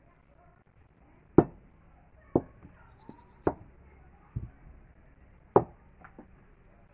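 Sharp knocks and taps right beside the microphone: five loud ones about a second apart with a few softer ones between, from objects being handled close to the recording camera.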